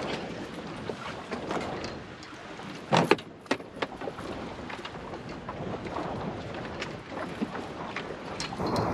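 Wind rushing over the microphone, with scattered clicks and knocks. The loudest is a sharp knock about three seconds in.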